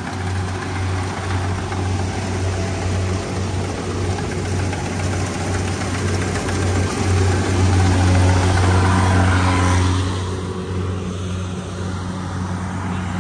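Rice combine harvester's engine running steadily, a low drone over a broad rushing noise that grows louder for a few seconds past the middle, then eases.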